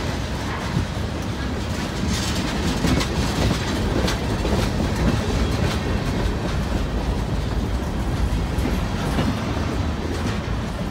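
A freight train's tank cars and covered hopper cars rolling past close by: steady wheel-on-rail rumble with repeated clicks of the wheels.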